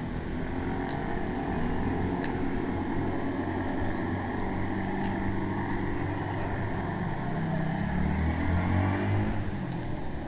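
A motor vehicle's engine running close by, its pitch wavering and getting louder about eight seconds in.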